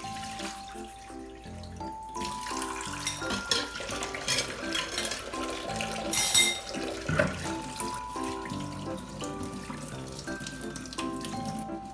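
Background music with a gentle melody of held notes, over water running from a kitchen tap and the occasional clink of dishes.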